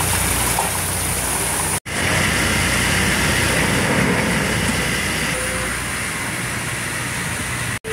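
Steady drone of running engine machinery with a hiss over it, broken by two brief dropouts, one about two seconds in and one near the end.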